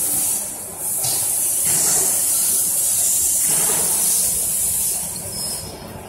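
A loud, steady, high hiss that briefly breaks off under a second in, over a low, uneven rumble of factory machinery.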